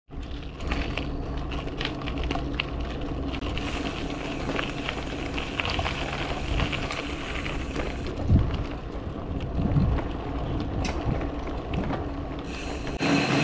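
Bicycle being ridden: steady road and tyre noise with many scattered sharp ticks, and a low thump about eight seconds in.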